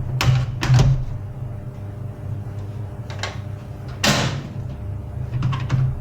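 HP LaserJet 401 laser printer: several short plastic sliding or scraping strokes, the loudest about four seconds in, and a few light clicks near the end, over a steady low hum.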